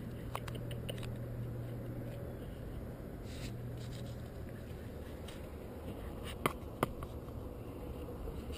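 Light scratching and scraping of a puppy's paws and claws on a pebbly exposed-aggregate patio, with two sharp clicks about six and a half seconds in, over a steady low hum.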